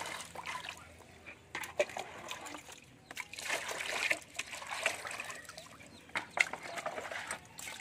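Water poured from a plastic scoop into a plastic basin, splashing and trickling in bursts, with a hand swishing in the water and a few sharp clicks.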